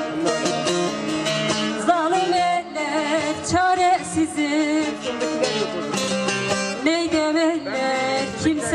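Turkish folk song music: a plucked string instrument plays a wavering, ornamented melody, with some singing.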